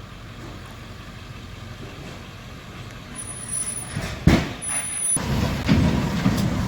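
A heavy vehicle's engine running with a low rumble. About four seconds in there is a sharp, loud burst of noise, and after it the engine rumble grows louder and rougher.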